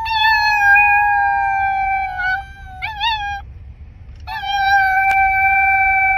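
A small pet howling in three high, drawn-out calls: a long steady howl, a short wavering one, then another long howl.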